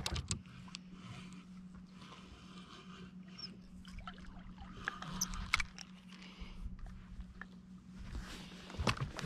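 Fishing reel and rod being handled, the reel handle turned with small scattered clicks and rattles, a few sharper clicks near the end, over a faint steady hum.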